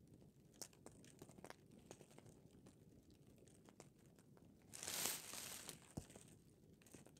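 Campfire crackling in scattered faint pops. About five seconds in, a Mylar space blanket crinkles for about a second as the person lying under it moves.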